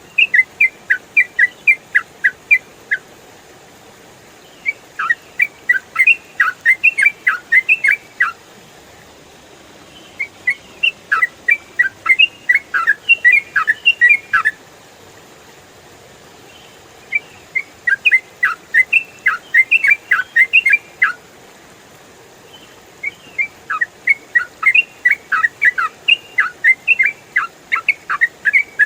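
Yellow-vented bulbul (trucukan) singing in fast runs of short, clear, down-slurred whistled notes, the rapid continuous style bird-keepers call ropel. There are five runs of a few seconds each, about four notes a second, separated by short pauses.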